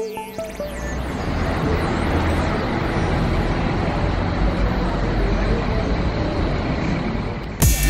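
Steady road traffic noise, a low rumble of vehicles, with background music fading out at the start and electronic music with a heavy beat cutting in near the end.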